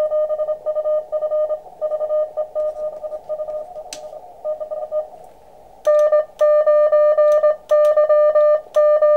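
Morse code (CW) tones near 600 Hz from an Elecraft KX2 transceiver, a contest station keying fast over a hiss of band noise. The signal weakens and breaks up a few seconds in. From about six seconds in, louder, steadier keying comes through.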